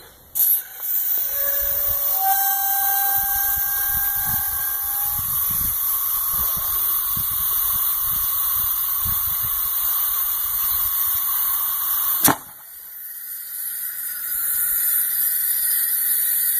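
Compressed air hissing loudly into a homemade PVC pneumatic baseball cannon through its air hose as it is charged to 120 psi, with brief squealing tones early on. About twelve seconds in, a single sharp crack cuts the hiss, which is the cannon firing. Hissing then builds again until it stops abruptly.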